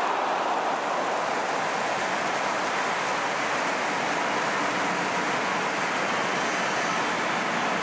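Steady crowd noise from a full football stadium, a dense wash of many voices with no single voice standing out.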